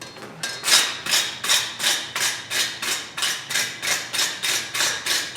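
Hand wire brush scrubbing the forge-welded end of a twisted steel bar, in even scraping strokes about three a second.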